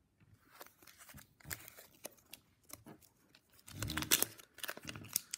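Foil Pokémon booster pack wrapper crinkling and tearing as it is opened by hand, in irregular faint crackles that get louder about four seconds in.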